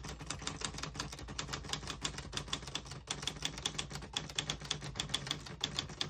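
Steady touch-typing on a 1956–58 Tower Chieftain manual portable typewriter, an Olivetti-made machine close to the Lettera 22: a quick, even run of typebar strikes, several a second, with no pauses.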